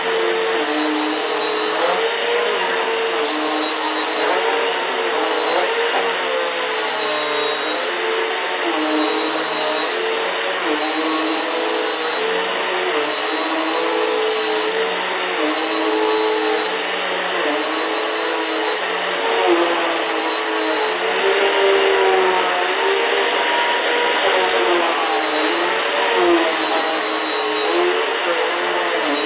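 Eureka PowerSpeed upright vacuum cleaner running steadily, its motor whine wavering slightly every couple of seconds as it is pushed back and forth. A few brief crackles come about two-thirds through as it picks up debris.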